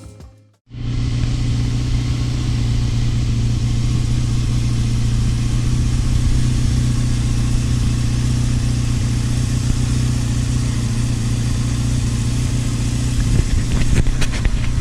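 Suzuki GSX750F Katana's air/oil-cooled inline-four engine idling steadily, starting about a second in after a brief silence, with a few light clicks near the end.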